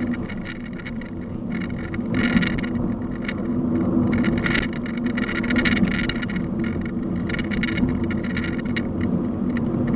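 Traffic and road noise heard while riding along a street: a steady low hum with brief hissy swells every second or two.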